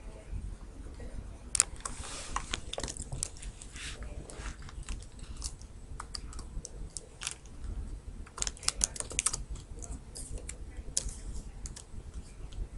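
Computer keyboard and mouse clicking in irregular clusters, densest a couple of seconds in and again about two-thirds of the way through.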